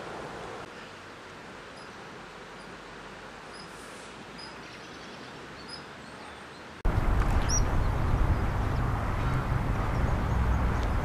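Steady outdoor rushing noise with a few faint bird chirps. About seven seconds in it jumps abruptly to a much louder rush with a heavy low rumble.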